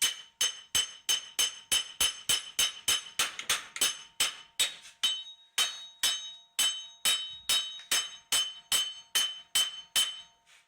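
Steady hammer blows on a steel truck hub part, about three a second, each strike ringing metallically. The blows stop shortly before the end.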